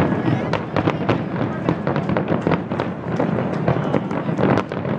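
Aerial fireworks display going off: an irregular string of bangs and crackles, a few a second, over a steady din.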